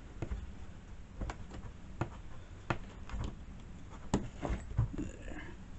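Irregular clicks and light knocks of chainsaw parts being handled and fitted together during reassembly, with a short rattle near the end.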